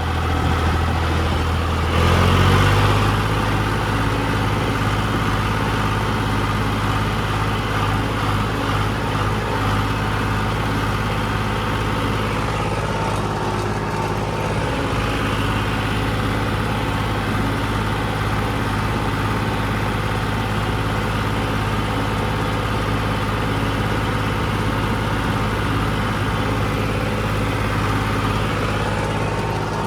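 Heavy earthmoving machine's engine running steadily under work. It revs up about two seconds in, then holds an even drone.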